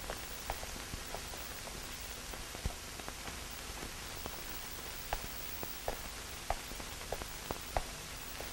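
Steady hiss from a 16mm film soundtrack, with faint irregular clicks and pops about once or twice a second.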